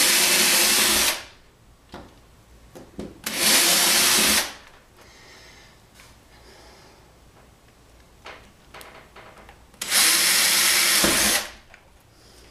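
Cordless drill boring holes through a plywood baseboard for track feeder wires, in three short runs of about a second each: one at the start, one about three seconds in, and one near the end.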